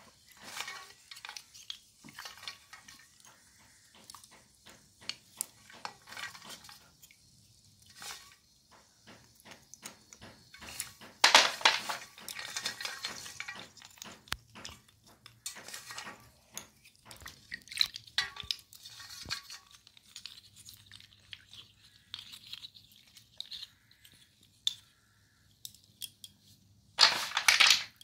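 Broken clay pot pieces being washed by hand in a steel basin of water: scattered light clinks and knocks of the shards against each other and the bowl, with water dripping and swishing. Two louder bursts of splashing come about eleven seconds in and again near the end.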